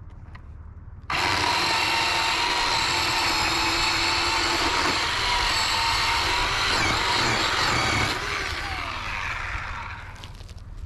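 Bauer 20V cordless electric chainsaw switching on suddenly about a second in and cutting through a log with a steady whine for about seven seconds. The trigger is then released and the motor and chain wind down, the pitch falling away over about two seconds.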